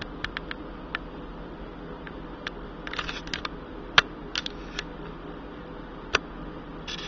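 Scattered light clicks and taps of something small being handled, irregular and unevenly spaced, with a sharper click about four seconds in.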